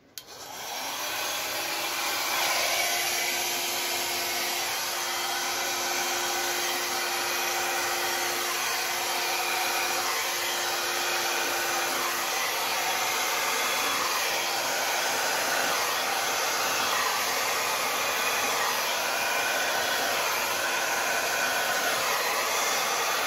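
Handheld hair dryer switched on, coming up to full speed in about two seconds and then running steadily as it blows across a wet acrylic pour on a canvas. A faint steady hum rides in it until about twelve seconds in.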